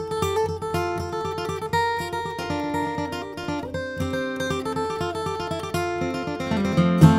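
Larrivee D-03R dreadnought acoustic guitar (Sitka spruce top, rosewood back and sides) capoed at the fifth fret, played solo in bluegrass style: a quick picked melody mixed with strummed chords, with a louder strum near the end.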